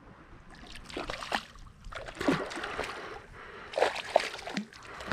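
A hooked jack crevalle splashing at the water's surface beside a kayak as it is brought up. The splashes come in several irregular bursts, with the loudest about two seconds in, near four seconds and at the end.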